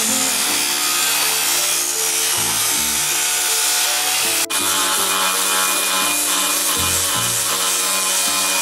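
Steady, loud, harsh noise of a power tool working the metal of a home-made anchor, under background music with a slow run of changing notes. It breaks off for an instant about four and a half seconds in.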